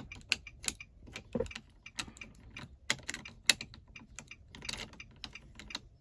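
Small metal emergency key clicking and scraping against the slot of a 2011 Nissan Armada's twist-knob ignition as it is worked into place: a run of irregular sharp clicks and taps.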